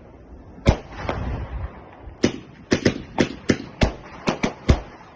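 Fireworks and firecrackers going off in sharp bangs: one under a second in, then about nine more in quick, irregular succession from about two seconds on.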